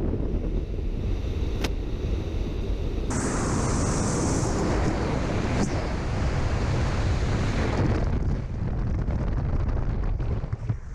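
Rushing wind buffeting a skydiver's camera microphone in the airflow of the jump. A hissing layer comes in suddenly about three seconds in and thins out again near eight seconds.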